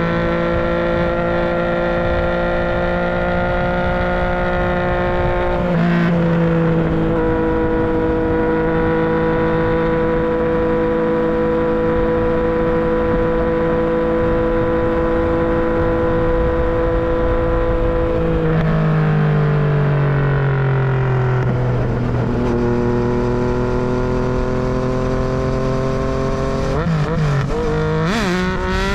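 Yamaha MT-09's three-cylinder engine and exhaust under way, mostly at steady revs. There is a brief dip about six seconds in, the revs fall away for several seconds past the middle, and there are quick throttle changes near the end before the revs rise again.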